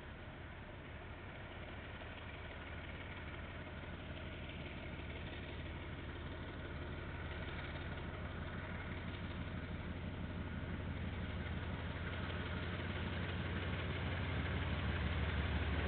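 Diesel locomotive engine drawing closer: a low, steady engine drone that grows steadily louder, heard through a security camera's microphone.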